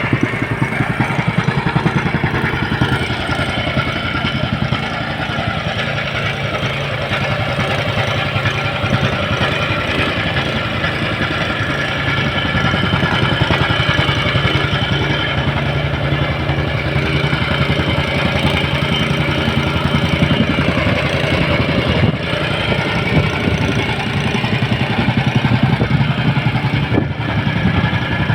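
Engine running steadily at a constant speed, with a fast, even low pulsing.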